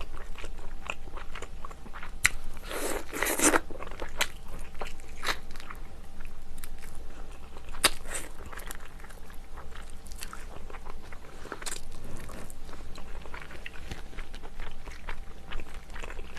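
Close-miked eating sounds: wet chewing and lip-smacking clicks while eating monkfish from a seafood stew, with one louder, longer noisy burst about three seconds in.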